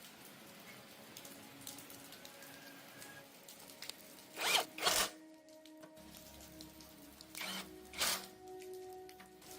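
Four short rasping strokes in two pairs, about three seconds apart, over faint background music.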